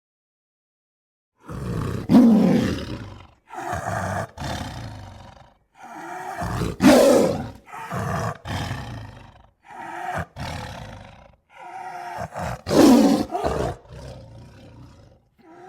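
Series of lion roars and grunting calls used as the voice of an extinct "American Mosbach lion": about seven roars in a row, each one to two seconds long. They start after a short silence and tail off into a few shorter, softer grunts near the end.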